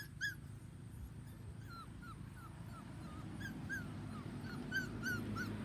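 Three-week-old standard poodle puppies whimpering: a string of short, high squeaks, close together at the start, sparse for a couple of seconds, then coming quicker again near the end.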